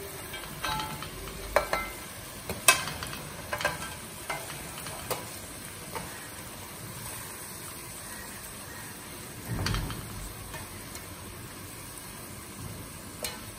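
Shredded cabbage being tipped and scraped off a steel plate into a pot of hot oil and butter, which sizzles steadily. A series of sharp clicks and scrapes of a spoon against the metal plate comes in the first half, and a duller knock about two-thirds through.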